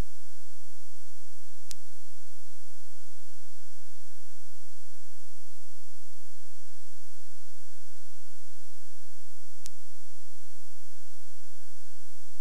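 Steady electrical hum and hiss with a faint, slightly wavering whine, with two faint clicks about eight seconds apart.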